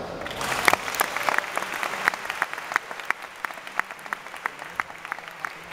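Audience applauding. The clapping is dense at first, then thins to a scattering of separate claps about three seconds in.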